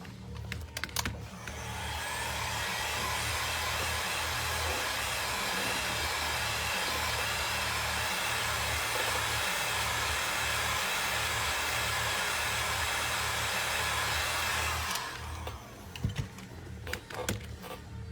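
Hot-air blower running steadily with a rushing hiss, warming the iPhone to soften the adhesive that holds the battery. It starts about a second and a half in and cuts off sharply near the end, with a few clicks around it.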